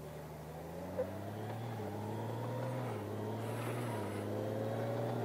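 2019 Honda Gold Wing Tour's flat-six engine pulling away under acceleration. Its pitch climbs, then drops back three times as the dual-clutch transmission shifts up, with a thin whine rising steadily over it as speed builds. There is one short click about a second in.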